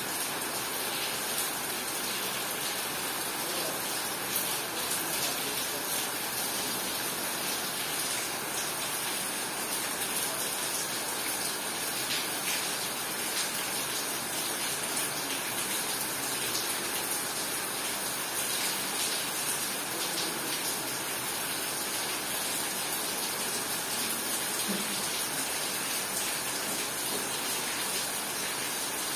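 Steady rain pouring down: an even, unbroken hiss with no letup.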